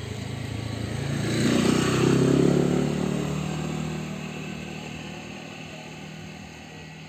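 A motorbike passing by: its engine grows louder to a peak about two seconds in, then fades away.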